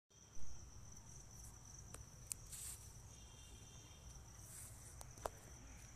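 Crickets singing a steady high-pitched trill in the background, with a single thump just after the start and a couple of faint clicks later on.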